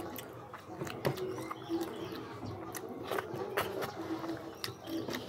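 Close-up eating sounds: wet chewing and lip smacking, with irregular sharp clicks as fish and saucy rice are eaten by hand.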